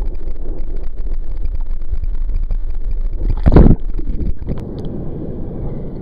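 Wind buffeting the microphone and choppy water sloshing right at the microphone, a steady loud rumble. About three and a half seconds in there is a brief, much louder thump, then a sharp click.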